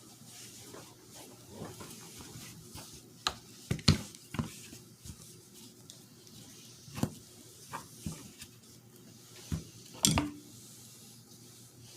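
Irregular clicks and knocks of a manual shifter assembly's parts being handled and worked apart by hand. A cluster of sharp knocks comes about four seconds in, another single knock around seven seconds, and the loudest clatter near ten seconds.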